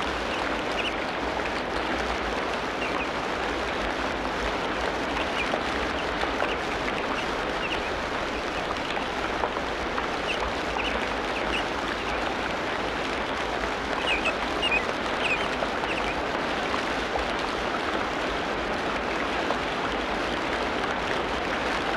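Tropical rainforest ambience: a steady, dense wash of water noise with short, high chirps scattered through it, a small cluster of them about two-thirds of the way in.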